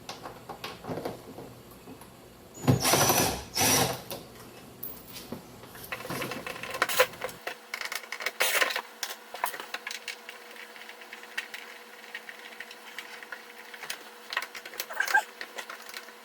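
Cordless drill-driver whirring in two short runs about three seconds in, backing out the car door panel's Phillips-head screws, followed by light clicks and rattles of handling.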